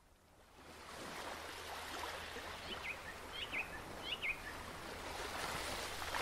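Steady outdoor ambience, an even rushing hiss like distant water or wind, fading in about half a second in. A few short bird chirps sound in the middle.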